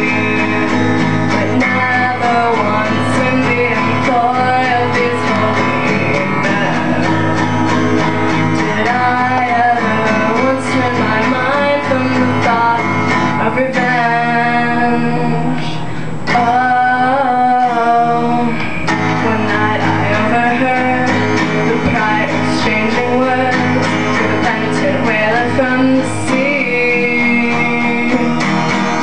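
Live acoustic guitar song: a woman singing while accompanying herself on a steel-string acoustic guitar.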